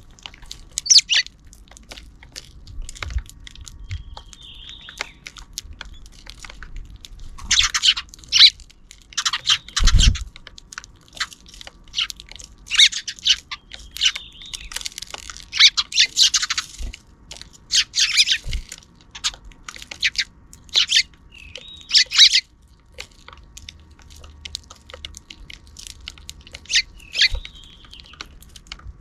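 Sparrows chirping and chattering in clusters of rapid, sharp chirps every few seconds, with a few dull low thumps in between.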